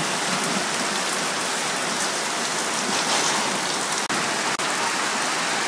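Heavy rain pouring steadily onto a waterlogged street, mixed with small hail, with scattered faint ticks of striking drops or pellets. The sound cuts out for an instant about four seconds in.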